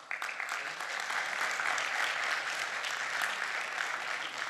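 Audience applauding: steady clapping from many hands that starts at once and holds evenly.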